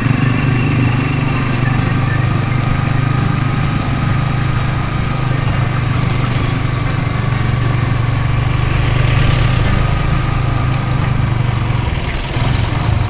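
Motorcycle engine running steadily, heard from the rider's seat; it eases off briefly near the end, then picks up again.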